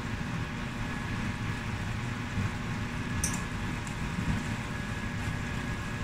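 Tomato sauce simmering in a large nonstick pan on high heat, a steady low bubbling rumble, with a light click about three seconds in.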